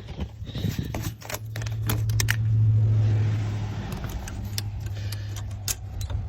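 Greenhouse roof and frame being tapped from inside under a load of snow: rattling and clinking, with a low rumble and hiss that swell about two seconds in and then ease off.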